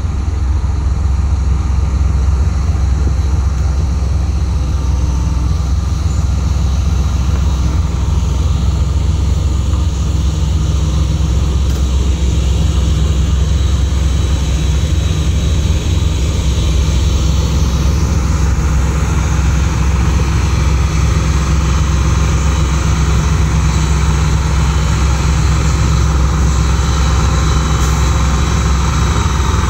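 Heavy-haul prime mover's diesel engine running with a steady low rumble as it slowly tows a multi-axle trailer carrying a train car.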